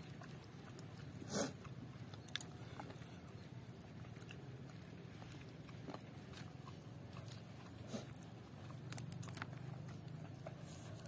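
Chewing and biting on seblak with chicken feet: scattered soft mouth clicks and smacks, a louder one about a second and a half in and a cluster near the end, over a faint steady low hum.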